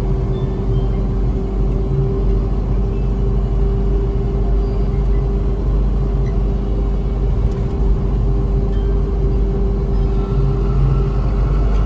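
Unimog truck's diesel engine running steadily, a continuous low rumble with a constant hum.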